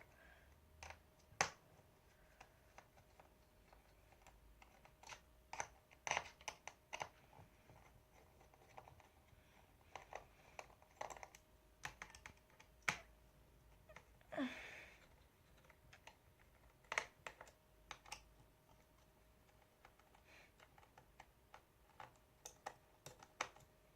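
Faint, scattered small clicks and taps of a screwdriver working the screws that hold a laptop's heatsink, with a short falling squeak about halfway through.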